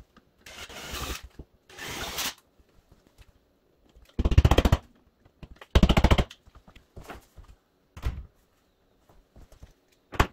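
Cordless power driver driving screws in short bursts: two brief runs in the first two seconds, then two louder bursts of rapid clattering, about four and six seconds in.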